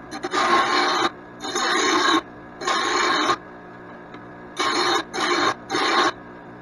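Arc welder laying short welds on a mower blade: six bursts of harsh noise, each under a second, the last three close together.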